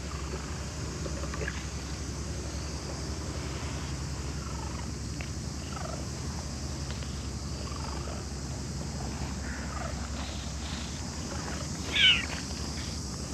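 A brown-tabby-and-white cat meows once, a short call near the end.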